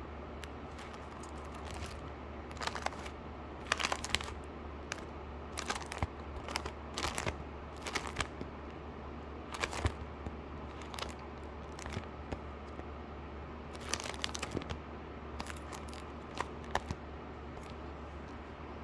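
Hand-wrapped packaging being unwrapped: paper or plastic crinkling and tearing in irregular short bursts, over a steady low hum.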